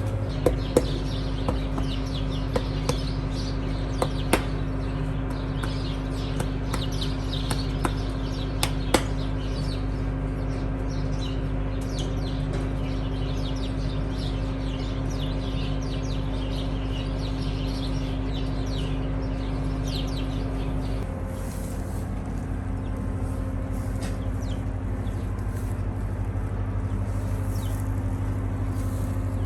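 Steady machine hum, with a few sharp clicks in the first nine seconds and small birds chirping over it. The hum changes its tone about two-thirds of the way through.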